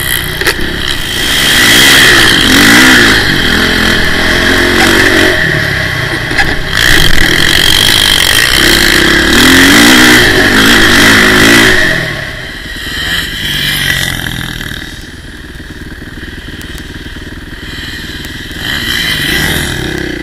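Motocross dirt bike engine heard from an onboard camera, revving up and falling back again and again as it rides the track, with wind and rush noise on the microphone. After about twelve seconds the engine drops to a lower, quieter run, with a brief rev near the end.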